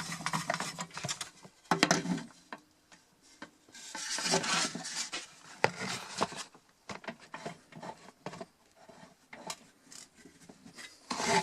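Wood rubbing and scraping in short, irregular bursts, with scattered clicks and knocks. The longest burst comes about four seconds in.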